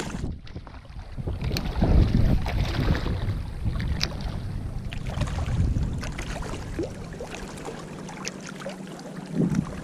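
Wind buffeting an action camera's microphone, a low uneven rumble, strongest a couple of seconds in and easing off later, with scattered faint ticks.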